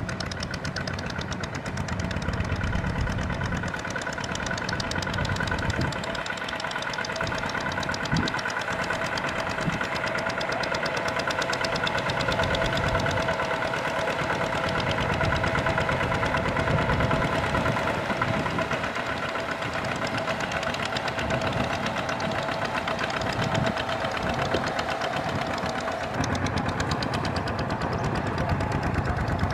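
Single-cylinder Kubota diesel engine of a two-wheel walking tractor running steadily under load, with a rapid knocking beat, as it hauls a trailer through deep mud.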